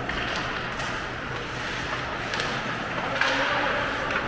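Ice hockey play in an indoor rink: a steady hiss of skates on the ice with a few sharp clacks of sticks and puck, the loudest about three seconds in.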